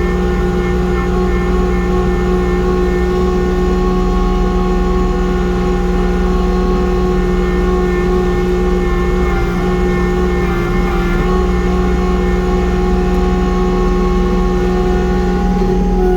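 Kubota compact tractor's diesel engine running steadily under load, driving a snowblower through heavy, wet snow, with a steady whine from the blower drive.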